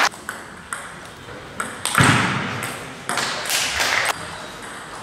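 Table tennis ball clicking off paddles and the table in a rally, a few sharp ticks in the first two seconds, followed by two louder rushes of noise around two seconds and three and a half seconds in.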